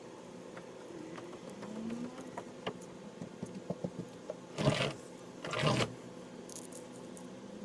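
Wound string being pulled off a baseball by hand: scattered light ticks, then two short scratchy rasps close together about halfway through.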